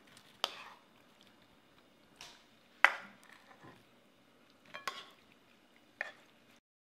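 A spoon knocking and scraping against a pan as thick sweet-and-sour sauce with vegetables is spooned out onto fried pork: a handful of separate clicks and knocks, the sharpest about three seconds in.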